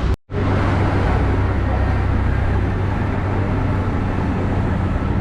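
Steady low rumble and hiss of vehicle noise, broken for a split second by an edit cut just after the start.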